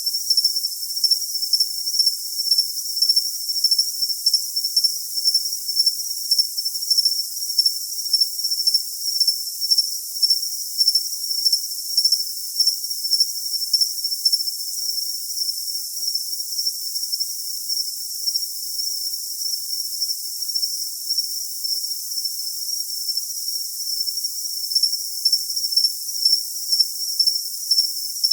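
Cricket chirping: a high, steady trill that pulses about once a second, over a constant high hiss with nothing in the lower range.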